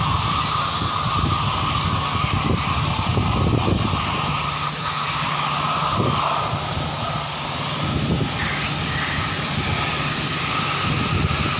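High-pressure jet from a trigger spray gun hissing steadily against the finned core of a compressor after-cooler as it is cleaned, with a steady machine hum underneath.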